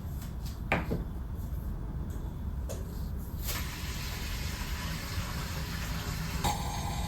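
Kitchen sounds: a sharp knock and a fainter one, then from about halfway a steady hiss of water running from a tap.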